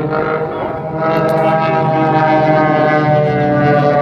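Engines of a four-aircraft aerobatic display formation droning overhead. The drone gets louder about a second in, and its pitch then slides slowly down as the formation passes.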